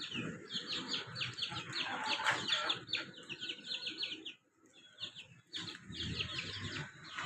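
Many small birds chirping in quick, overlapping short downward notes, with low rustling beneath. The sound drops out for about a second a little past halfway, then the chirping resumes.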